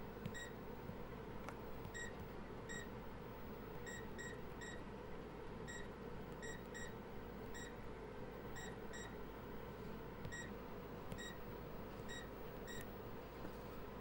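A series of short, identical high electronic beeps at irregular intervals, over a steady hum and hiss, with a few faint clicks.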